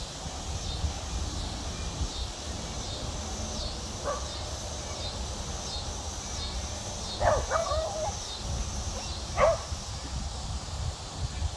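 A dog gives a few brief whines and yips, about four seconds in and again in a cluster later on. Under them a high chirp repeats steadily, about one and a half times a second, over a low rumble of wind.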